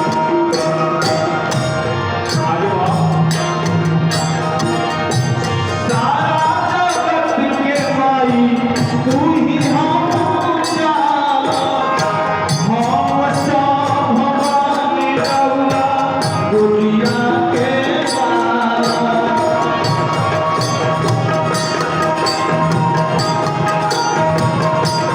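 Live devotional folk music: a melody instrument with held notes over a steady beat of hand percussion and jingles.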